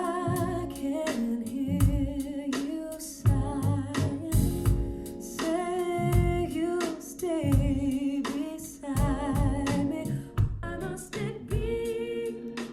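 A pop song played back through a Devialet Phantom wireless speaker: a sung vocal with vibrato over a deep bass beat.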